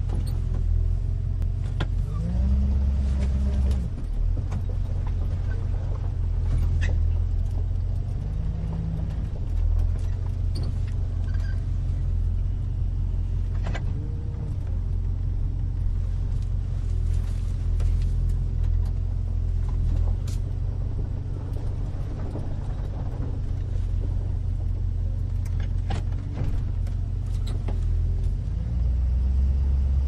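A 1970 Chevrolet 2500 pickup driving, heard from inside the cab: a steady low engine drone whose note rises and falls a few times as the truck accelerates and eases off, with occasional faint clicks and rattles.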